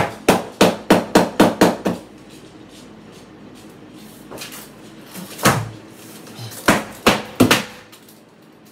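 Hammer driving a nail into a wall. A quick run of about eight blows comes in the first two seconds, then one blow, and then three more near the end.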